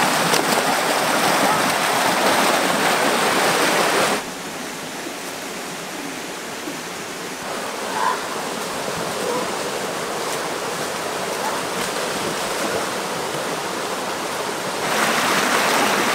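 Rushing water of a shallow rocky stream running over stones. It is loud and close at first, drops suddenly about four seconds in, and is loud again near the end.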